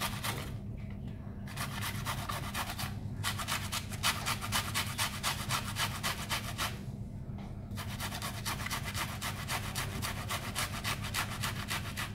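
A small onion being rubbed on a flat handheld metal grater, making rasping strokes in quick runs with short pauses between them, about 1.5, 3 and 7 seconds in.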